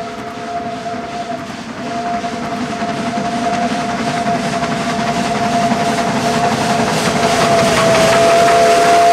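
Garratt steam locomotive sounding a long chord whistle as it approaches and passes. The whistle breaks off briefly just under two seconds in, then holds again. Under it, the noise of steam and the moving train grows louder throughout.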